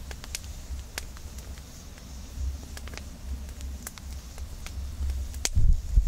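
Oak log campfire crackling, with sharp pops at irregular intervals over a low rumble. A dull low thump comes near the end.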